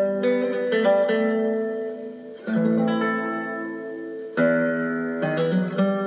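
Background music led by a plucked guitar, with clusters of struck notes over chords that ring on.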